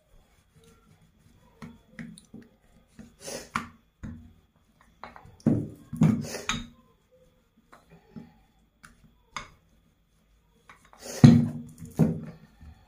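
Irregular knocks, thuds and rubbing from a rolling pin and hands working a round of dough on a wooden board. The loudest knocks come about eleven seconds in.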